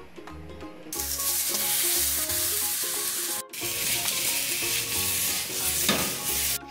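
Pork cubes sizzling and frying in a hot wok as they are tossed over a gas flame, starting about a second in with a brief break midway. Background music plays underneath.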